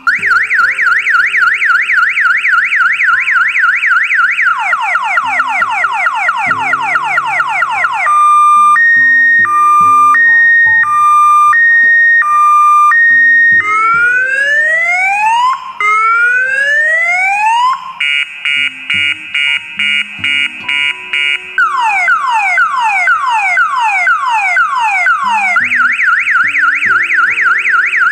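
An electronic vehicle anti-theft alarm siren sounding continuously and cycling through its patterns. It starts with a fast up-and-down warble, then slow falling sweeps, a two-tone hi-lo, three rising whoops and rapid chirps, and ends on the falling sweeps and the warble again. The siren signals that the parked vehicle's alarm has been triggered.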